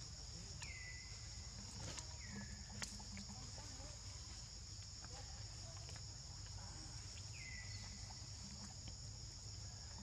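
Steady, high-pitched drone of an insect chorus, holding two pitches throughout. A few short falling chirps come on top, once about a second in, again near two seconds and once more near the end, with a couple of faint clicks.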